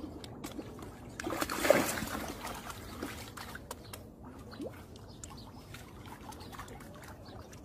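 Water lapping and trickling against a stone edge, with scattered small clicks and a brief louder rush of noise about two seconds in.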